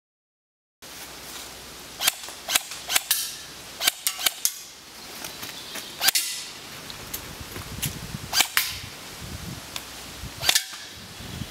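ASG MXR18 LVOA AR-15-type airsoft electric gun, running on a 7.4 V LiPo battery, firing single shots that come one at a time and in quick doubles at irregular spacing. The shots start about a second in, after a brief silence.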